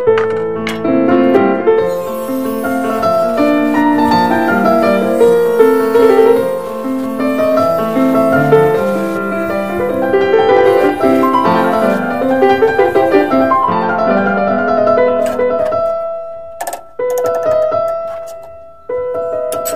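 Background piano music: a stream of notes that thins to a few held notes near the end.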